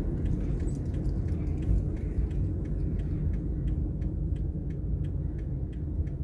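A car's turn-signal indicator ticking evenly, about three ticks a second, over the low rumble of the car rolling slowly along the road.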